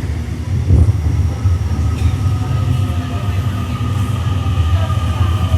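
Mariyung electric intercity train at the station: a steady heavy low rumble, with a steady high whine coming in about a second and a half in and holding.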